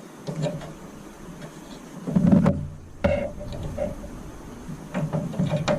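Scattered clicks and knocks of tools and parts being handled while working on a microwave oven, with a heavier thump a little after two seconds.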